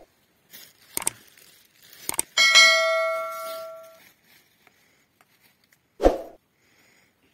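Subscribe-button animation sound effect: two sharp clicks, then a bell ding that rings out and fades over about a second and a half. A short thump follows near the end.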